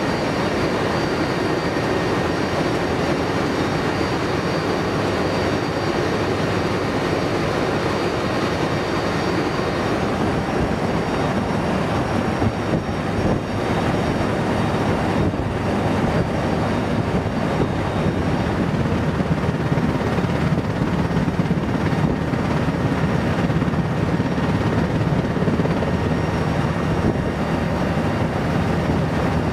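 Steady, loud in-flight noise of an MC-130J Commando II tanker's four turboprop engines and propellers, mixed with wind rushing through the open cargo ramp, heard from inside the hold.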